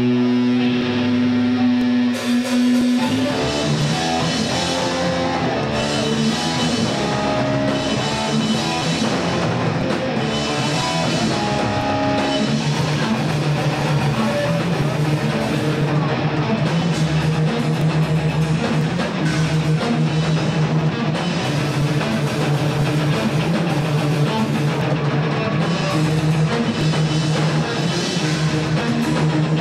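Thrash metal band playing live: electric guitars over a drum kit. A held guitar chord rings for the first few seconds, then the drums and cymbals come in with the full band about three seconds in.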